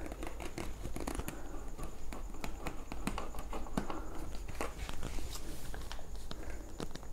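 A plastic bottle of Slime tyre sealant being squeezed and handled while it pushes sealant through a tube into a tyre's valve stem: irregular crinkling and small clicks throughout.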